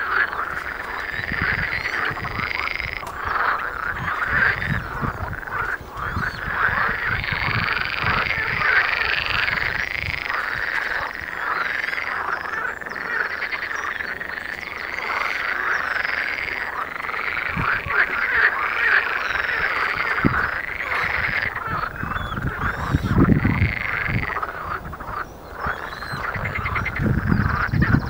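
Spring breeding chorus of European water frogs: many males croaking at once in a dense, overlapping, unbroken stream of calls. A few low rumbles come in during the last few seconds.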